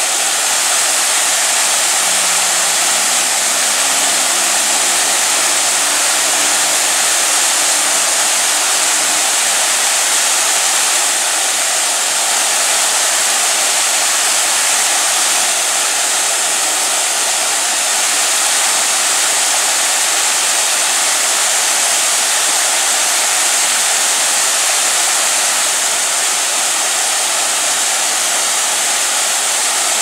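A waterfall cascading over rocks: white water rushing in a steady, loud hiss.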